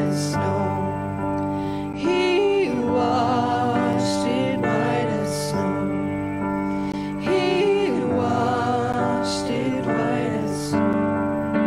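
Slow hymn played on an electric keyboard, with a group of voices singing long held notes over the chords.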